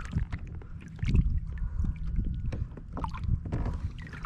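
Scattered small knocks and clicks of handling aboard a fishing kayak, over a steady low rumble of wind and movement on the microphone.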